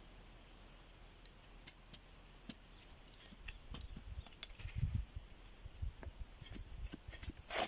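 Scattered light clicks and scraping of hand work, such as cutting and handling material, with a louder sharp snap near the end.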